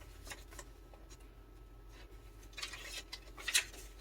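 Paper pages of a handmade journal rustling and ticking softly as they are handled and turned, with a louder rustle about three seconds in.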